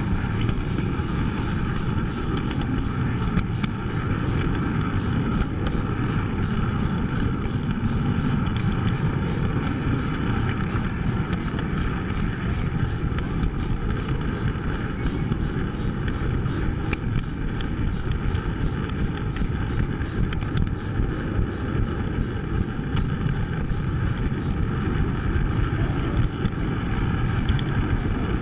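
Steady rumble and rattle of a running model train's wheels and motor on the track, heard from on board the moving train, with faint scattered clicks.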